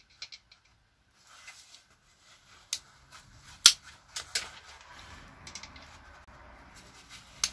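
A few sharp clicks and taps of small hard parts being handled while an old window winder handle top is prised off. The loudest click comes about midway.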